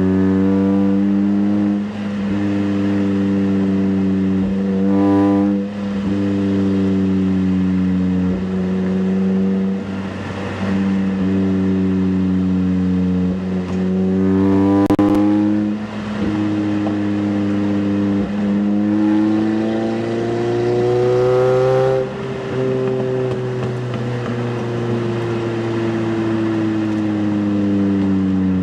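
Toyota Camry four-cylinder engine running through a Magnaflow Street Series cat-back exhaust while driving. The exhaust note climbs in pitch under throttle and drops back several times, then falls away slowly near the end as the car eases off.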